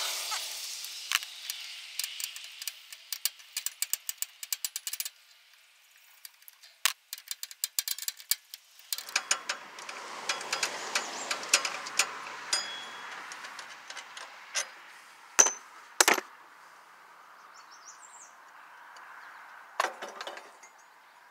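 Socket ratchet clicking in quick runs as the cylinder-head bolts of a Briggs & Stratton flathead engine are loosened, with light metallic clinks and two sharper knocks past the middle.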